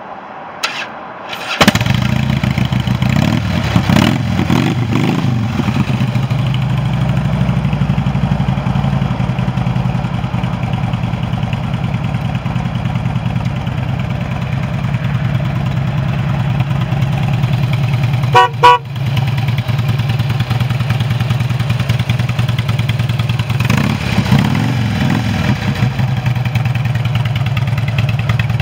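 A 2007 Harley-Davidson Ultra Classic's Twin Cam 96 V-twin starts about a second and a half in, then idles steadily with a few brief revs. About eighteen seconds in, the motorcycle's horn sounds twice briefly.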